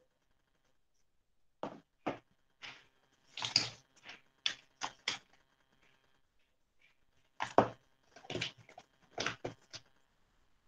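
Irregular short knocks and taps of handling as a clay relief plaque is moved about and set down on a table. They come in two clusters, starting about a second and a half in and again about seven and a half seconds in.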